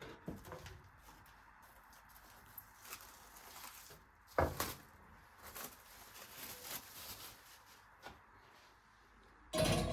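Scattered light clicks and knocks, with one louder knock about four and a half seconds in, then a loud rubbing noise starting just before the end.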